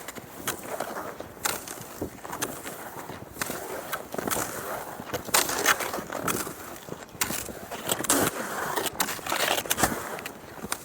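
Cross-country skis sliding and scraping over snow in irregular strokes, with sharp clicks mixed in.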